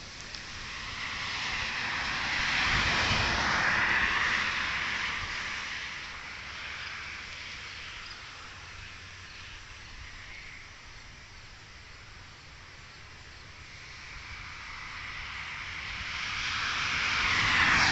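Vehicles passing by on a nearby road, one swelling past a few seconds in and another building near the end, over a steady outdoor background.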